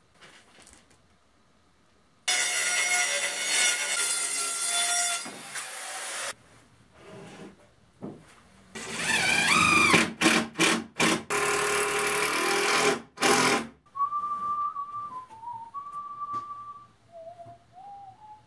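A power tool runs in two long bursts with short knocks between them. Near the end a single clear tone steps up and down in pitch, like someone whistling a short tune.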